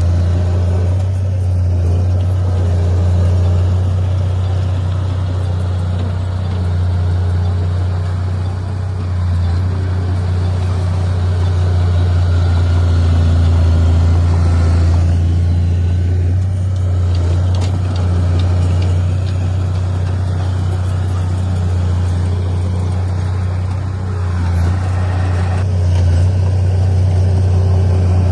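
Heavy earthmoving machine's diesel engine running with a steady low drone, the level rising and dipping a little as it works.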